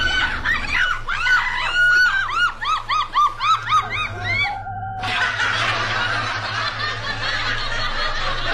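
High-pitched cackling laughter: a quick run of shrill rising-and-falling notes, speeding up to about four a second, that breaks off after about four and a half seconds. A steady rough rushing noise follows to the end.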